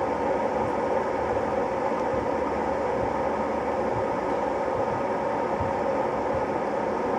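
Ovente KG83B 1.5 L glass electric kettle heating water, a steady rushing hiss as the water nears, but has not reached, the boil.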